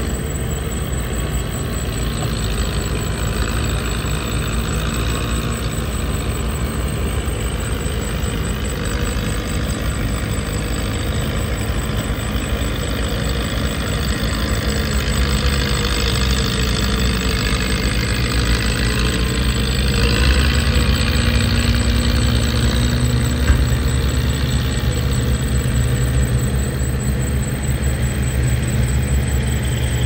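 Komatsu bulldozer's diesel engine running steadily under load, working a little harder from about two-thirds of the way through, with one short sharp tick near the end.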